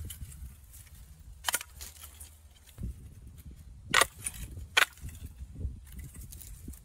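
Spine of a machete striking a bamboo pole to knock off its thin side twigs: a few sharp knocks and snaps, the loudest two close together a little past the middle.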